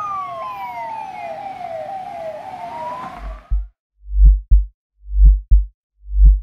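Emergency vehicle siren wailing, a slow falling-then-rising tone with a faster, repeating falling sweep over it, cut off about three and a half seconds in. Then a deep heartbeat sound effect follows: paired thumps about once a second.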